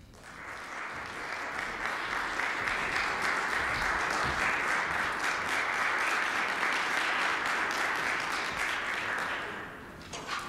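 Audience applauding, swelling over the first couple of seconds, holding steady, then dying away near the end.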